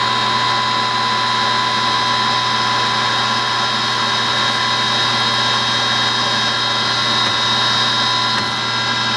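Clausing 600 Series gear-head lathe running at 1000 RPM: a steady gearbox and motor whine with several high, unwavering tones.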